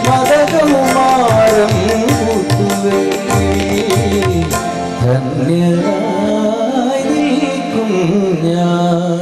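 A man singing a Malayalam film song into a microphone, accompanied by a live band with percussion.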